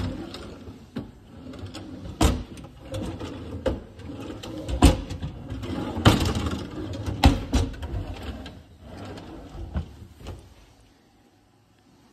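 Wooden kitchen drawers being slid open and pushed shut one after another, a sliding rumble broken by about eight sharp knocks as they bump closed. The knocking stops about a second before the end.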